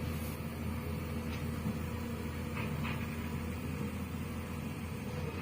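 An engine running steadily with a low, even hum and a faint steady tone above it. Two faint clicks come about halfway through.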